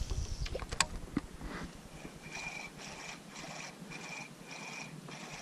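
Spinning reel being cranked to retrieve a lure: a soft whirr that pulses about twice a second with each turn of the handle, after a few sharp clicks in the first second.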